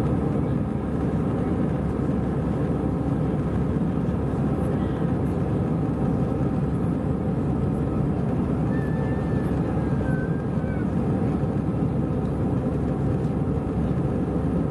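Steady cabin noise of an Airbus A320 in flight, a low, even rumble of engines and rushing air heard from inside the cabin.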